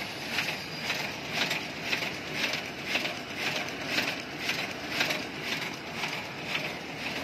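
DGM Technocut 1050 S automatic die-cutting machine with stripping running at 7,010 sheets per hour, with a rhythmic mechanical clatter about twice a second, one for each sheet cycle.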